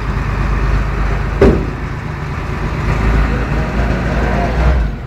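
Vehicle engines running steadily while a hydraulic winch on a 6x6 army truck pulls an off-road buggy up out of a gully. A sharp knock about a second and a half in.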